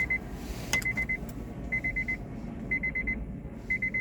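Electronic beeper sounding a high-pitched pattern of four quick beeps, repeated about once a second, over a low steady hum.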